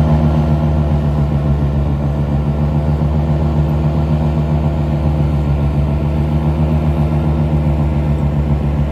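A motor vehicle's engine running steadily at an even pitch.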